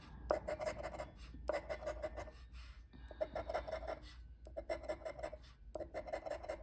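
Scratch-off lottery ticket being scratched off, the latex coating scraped away in about five short runs of rapid rubbing strokes with brief pauses between them.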